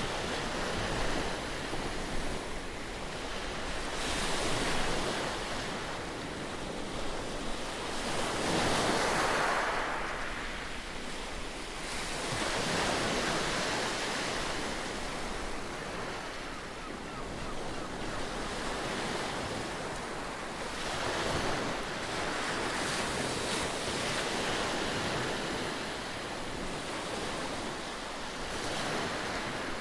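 Small sea waves breaking and washing up a pebbly beach, the surf noise swelling and fading every few seconds as each wave comes in.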